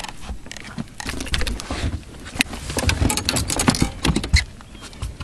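Irregular clicks, knocks and rustles of handling in a small boat, over a low rumble, busiest in the middle and the latter part.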